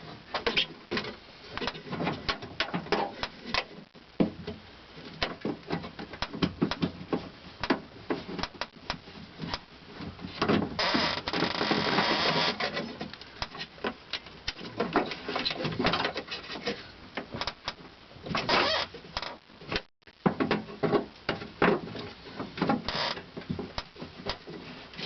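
Clicks, knocks and rattles of plastic and metal as a replacement outside door handle is worked into a car's front door shell, with a longer scraping rub about halfway through.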